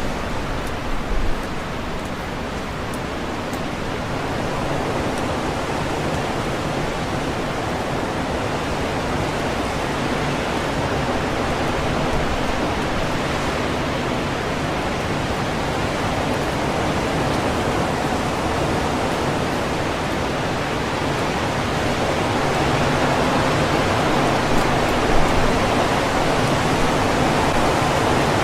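Strong wind rushing through leafy trees, a steady rustle and roar that slowly grows louder, with a couple of brief low thumps, one about a second in and one near the end.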